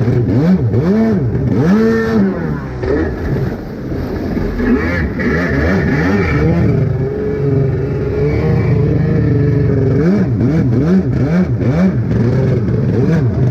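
Two-stroke engine of a Yamaha Superjet stand-up jet ski revving up and down in quick throttle blips, settling into a steadier run in the middle, then blipping again near the end.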